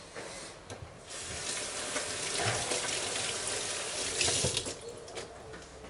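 Water tap running into a sink, starting about a second in and shutting off near the end.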